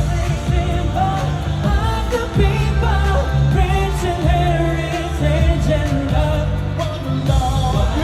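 Pop music with a singer's voice over a steady band accompaniment, played loud.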